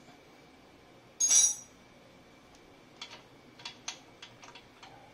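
Hand tools and metal fasteners clinking while the stock exhaust's mounting bolts are worked loose with a T-wrench: one short, loud scrape about a second in, then a run of light, irregular metallic clicks.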